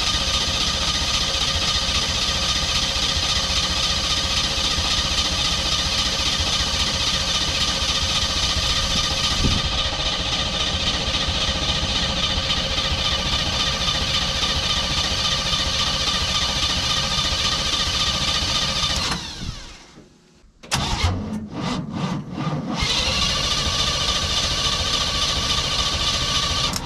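A GM electric starter motor spinning freely with no load, a steady high whine, held on by a bad solenoid that doesn't kick off once engaged. It cuts out about 19 seconds in, gives a few short spurts, then runs again steadily until it stops near the end.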